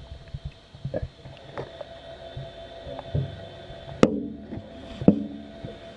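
Knocks and clanks heard underwater inside a submerged snorkelling cage, over a steady hum. The two loudest come about four and five seconds in and ring briefly.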